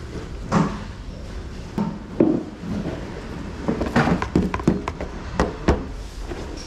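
Plastic scoop scraping across a mesh sieve and knocking against its frame while sifting black soldier fly larvae: a run of irregular knocks with scraping in between.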